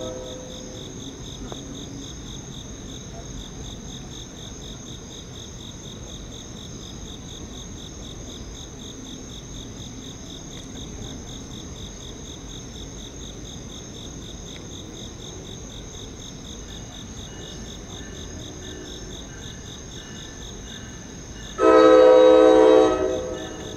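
Night insects chirping steadily in a fast pulsing rhythm. About 22 seconds in, an approaching NJ Transit train sounds its horn in one loud blast, a bit over a second long, which then fades.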